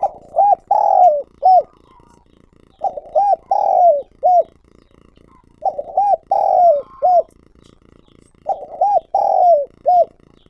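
Spotted dove giving its calling coo four times, about three seconds apart. Each phrase is two short coos, a longer coo that falls at the end, and a short closing coo.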